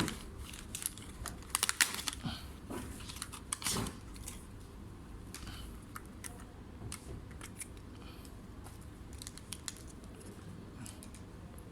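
Scattered small clicks and taps from handling a laptop, thick in the first four seconds and then sparser.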